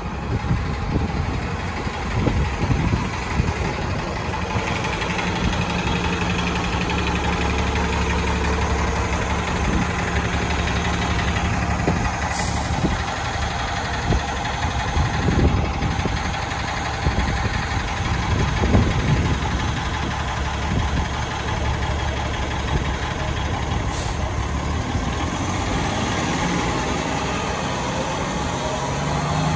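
City transit bus engine running with a steady low hum as the bus idles and then moves slowly away.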